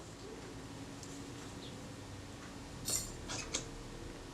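A few small, light metallic clicks of hand tools against the parts of a camera shutter during reassembly, over a faint steady hum.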